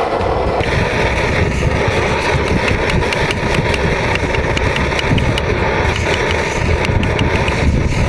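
Primus Multi-Fuel pressurised liquid-fuel camp stove burning steadily with a loud hiss. A few light clicks come through in the middle.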